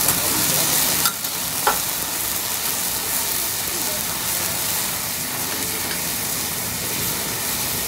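Food frying and sizzling steadily on a hibachi teppanyaki griddle while flames burn on the cooking surface. Two sharp clicks come a little over a second in.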